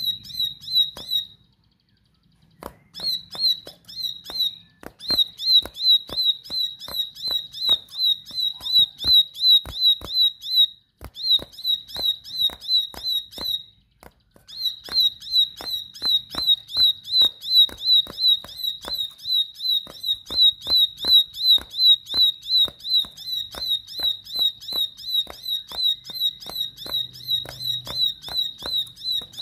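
Caged ciblek sawah (a prinia) calling insistently: a fast, even run of sharp high chirps, about three a second, each with a click. The run pauses briefly near the start and twice more.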